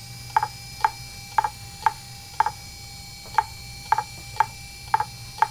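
Fujitsu MHK2048AT 2.5-inch laptop hard drive clicking in a steady rhythm, about twice a second, over a low steady hum. This is the repeated head clicking typical of a failing drive.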